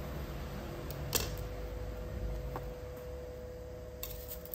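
A few small clicks and taps from handling the laptop and its screws during disassembly, the sharpest about a second in, over a steady low hum.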